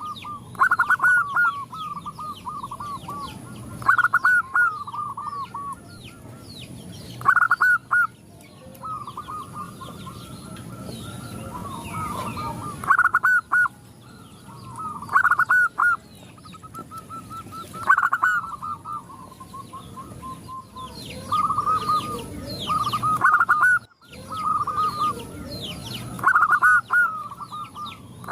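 Zebra doves cooing, phrase after phrase, the calls overlapping as several birds answer one another. Each phrase opens with a loud note and runs on into a string of quick, softer notes.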